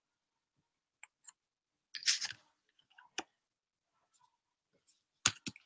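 Sticker handling: a few faint clicks, a short paper rustle about two seconds in, and two soft knocks near the end.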